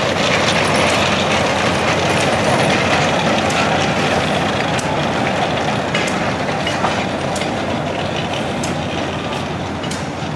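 Miniature ride-on passenger train rolling past on small-gauge track, loudest in the first few seconds and fading as it moves away. Light clicking of the wheels on the rails runs through the later part.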